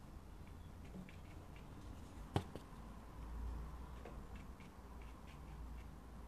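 Wide flat brush dabbing paint onto watercolour paper: faint, scattered light taps and clicks, with one sharper click about two and a half seconds in, over a low room hum.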